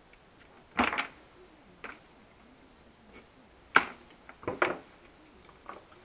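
Clicks and knocks of hand tools and wires being picked up and set down on a wooden workbench while a soldering iron is brought over: a handful of separate taps, the sharpest about four seconds in.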